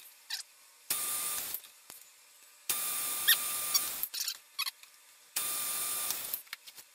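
Logan 920 metal lathe turning a wooden pulley blank while a tool bit cuts steps into the wood, heard as three bursts of cutting noise with a steady thin whine and short squeaks. The bursts start and stop abruptly, with near silence between them.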